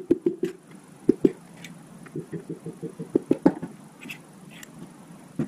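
Runs of quick, dull taps from a hammer on a Chevrolet 350 small-block short block, in the way a piston is tapped down through a ring compressor into its bore. The strongest taps come about a second in and around three and a half seconds, with a couple of lighter metallic clicks near the end.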